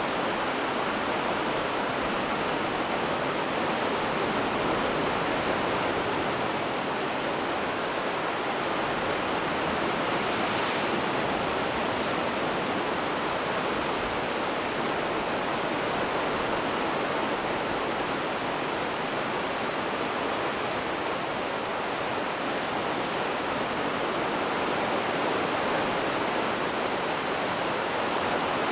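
Steady rushing noise of surf breaking below the sea cliff, even and unbroken.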